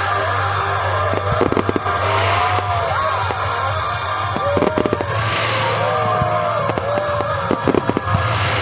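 Fireworks going off: a run of sharp bangs and crackles, with hissing bursts and whistling tones that rise and fall.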